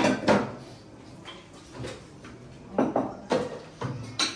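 Dishes and utensils clattering and knocking as they are handled: a loud pair of knocks at the start, a couple of faint ones, then four more sharp knocks in the last second and a half.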